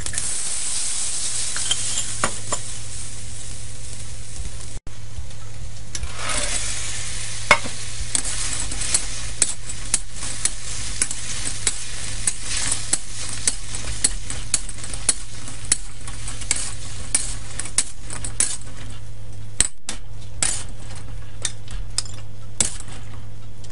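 Sauce sizzling as it is poured into hot oil and garlic in a steel wok, then a metal spatula scraping and clicking against the wok, about one and a half clicks a second, as fried chicken pieces are stirred through the bubbling sauce.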